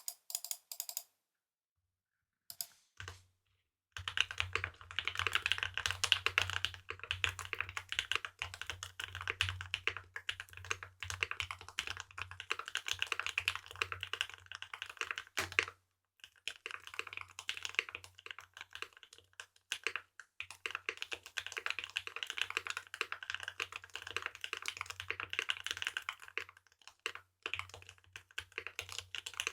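Typing on a Ciel 60 mechanical keyboard with lubed Gateron Bubblegum switches, an aluminium plate, switch foam pads and GMK keycaps: a few scattered keystrokes first, then fast continuous typing from about four seconds in, with a brief pause about halfway.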